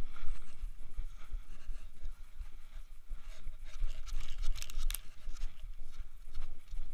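A mountain bike lying on a dirt trail being handled: scattered clicks and rattles of the frame and parts, with a sharp cluster of clicks about four and a half seconds in, over a low rumble of wind on the microphone.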